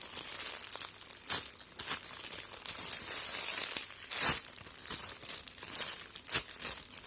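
Plastic packaging bag crinkling as a jumbo foam squishy is squeezed inside it, with several sharp crackles, the loudest about four seconds in.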